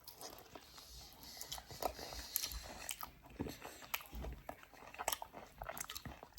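A person chewing and biting into orange segments close to the microphone: a string of short, irregular mouth clicks and smacks.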